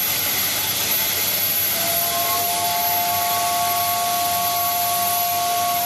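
Steam locomotive standing with steam venting, a steady loud hiss, joined about two seconds in by a faint steady whine of a few tones.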